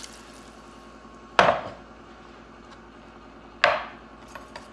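Two sharp knocks of kitchenware, a little over two seconds apart, each with a short ringing tail, over a faint steady hiss.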